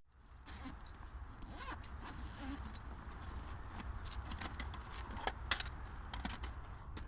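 Scattered clicks and rustling handling noises, with a sharper click about five seconds in, over a steady low rumble.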